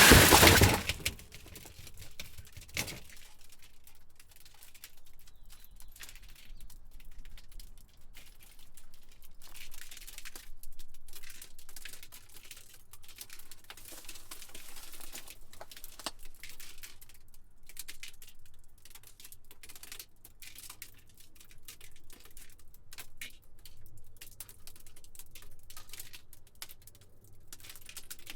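Glass shattering: a loud crash at the very start that dies away within a second, a smaller crash about three seconds in, then a long trickle of small glass fragments clicking and tinkling as the debris falls and settles.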